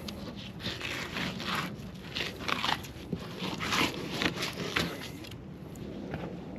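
Fillet knife slicing through a snapper fillet on a cutting board, a run of short, irregular scraping and crunching strokes that stops about five seconds in.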